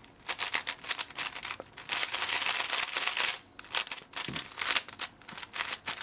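YuXin 5x5 speedcube turned quickly by hand: rapid clicking and clacking of its plastic layers, in bursts with a dense flurry about two seconds in and short pauses between.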